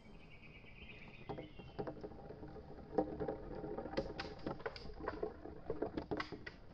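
Colourful balls rolling along a wooden marble-run track, a low wooden rumble broken by sharp clicks and knocks as each ball crosses the joint between two track sections. The rolling starts about a second in and grows busier as more balls follow.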